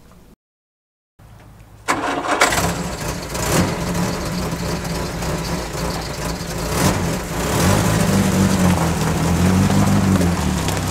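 A car engine starting about two seconds in, then running steadily, louder in the second half.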